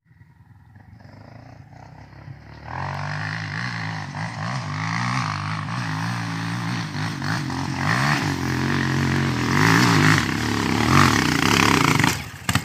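Single-cylinder four-stroke trail motorcycle climbing a dirt hill, its revs rising and falling repeatedly as the rider works the throttle. It starts faint about three seconds in and grows steadily louder as the bike comes closer.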